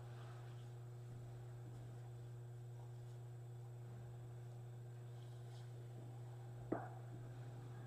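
Steady low electrical hum over quiet room tone, with a single light knock about seven seconds in.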